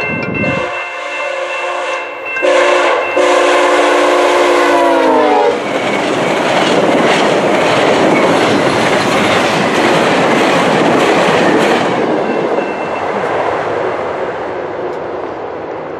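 VIA Rail passenger train led by a GE P42DC diesel locomotive sounding its horn on approach, louder from about two and a half seconds in, the chord dropping in pitch as the locomotive passes about five seconds in. The locomotives and cars then rush past with wheels clicking over rail joints, fading away after about twelve seconds.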